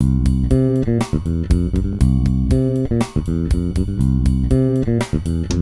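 Intro music: plucked bass and guitar notes in a steady, repeating rhythm.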